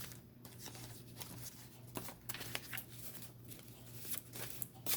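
A deck of reading cards being handled and shuffled: irregular soft papery rustles and light snaps over a faint steady low hum.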